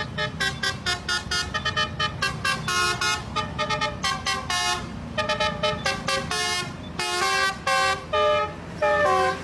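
Telolet horn, a multi-tone musical air horn, playing a quick tune of short toots at changing pitches, with a few longer notes near the end, over the low rumble of a running engine.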